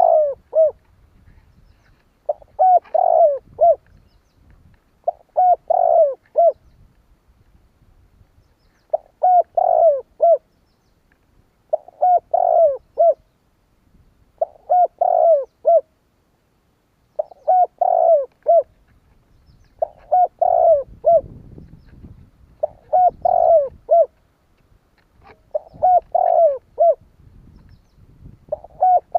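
Spotted dove cooing its repeated three-to-four-note call, one phrase about every three seconds.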